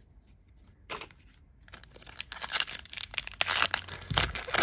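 Trading-card pack wrapper being torn open and crinkled: a short rip about a second in, then a few seconds of dense crinkling and tearing that grows louder toward the end.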